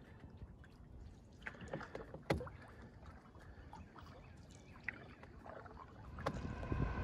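Canoe paddle strokes dipping and splashing in the water, with drips and light knocks. Near the end a freight train on the shore comes in, growing louder with a steady, multi-toned sound.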